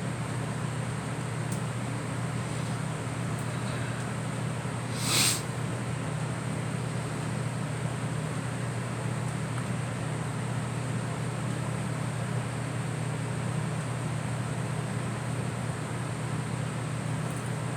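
A steady low mechanical hum, with one short hissing burst about five seconds in.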